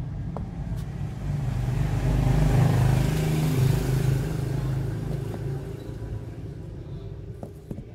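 A motor vehicle's engine passing by, its hum swelling to a peak about three seconds in and then fading away. A few light clicks of metal parts being handled are heard near the start and near the end.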